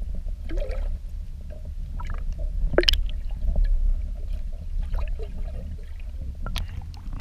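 Muffled underwater sound of lake water around a submerged camera: a steady low rumble with gurgling and a few sharp clicks, the loudest about three seconds in.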